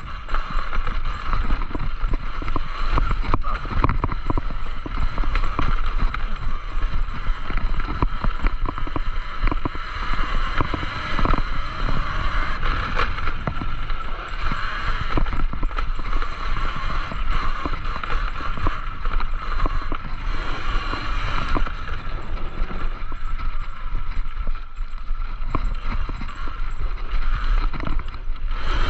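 Talaria Sting electric dirt bike ridden over a rocky dirt trail: steady riding noise with many small knocks and rattles from the bumps and gravel, over a low wind rumble on the microphone.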